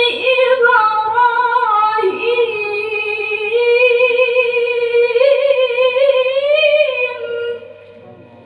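Qur'an recitation: a qari's solo voice chanting a long, drawn-out melismatic phrase in a high register, with wavering ornamented turns in pitch, ending about seven and a half seconds in.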